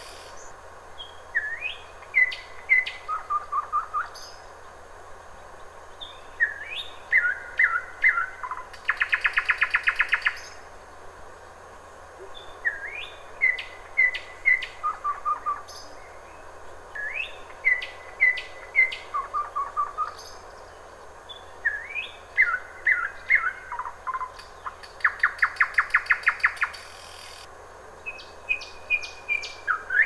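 Nightingale singing: phrases of clear whistled notes every few seconds with short pauses between them, twice breaking into a long, fast rattling trill.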